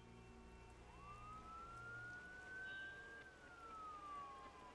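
Emergency-vehicle siren wailing faintly: one slow rise in pitch starting about a second in, then a fall toward the end.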